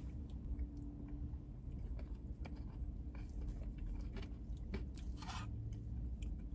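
People eating McFlurry ice cream with Skittles pieces from plastic spoons: quiet chewing and small spoon clicks, with a brief hiss about five seconds in, over a low steady hum.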